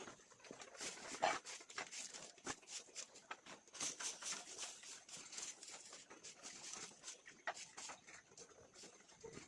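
Animals moving about, with many scattered small taps and scratches and one short call about a second in.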